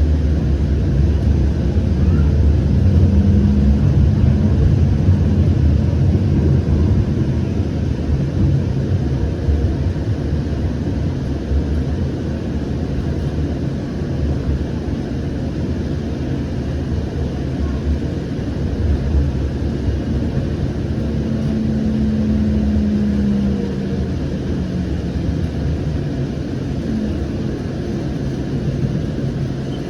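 Cabin noise of a Siemens S700 light rail car: a steady low rumble with a constant hum, and a brief higher-pitched tone twice.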